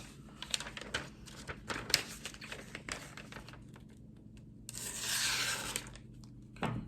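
A pocket knife blade slicing through a sheet of paper: scattered paper rustles and small ticks of handling, then a longer hissing slice about five seconds in, the sign of a blade that is still razor sharp.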